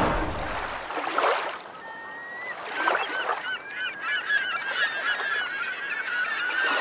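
A flock of birds calling, many short overlapping calls that start about two seconds in and keep going. Music fades out at the start, and a soft whoosh passes about a second in and again about three seconds in.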